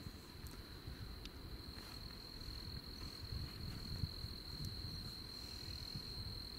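Crickets chirring in one steady, unbroken high trill, over a low rumble.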